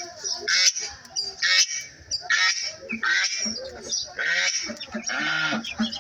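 Domestic geese honking, about five loud, harsh calls.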